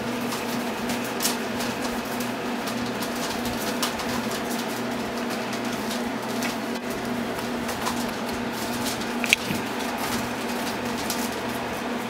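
Standard poodle puppies, about four weeks old, playing on newspaper: scattered faint clicks and rustles, with one brief high squeak about nine seconds in, over a steady low hum.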